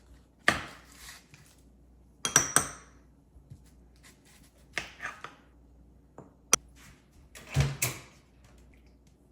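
Kitchen clatter of bowls, utensils and containers being handled and set down: about five separate knocks and clinks, with one sharp click a little over six seconds in.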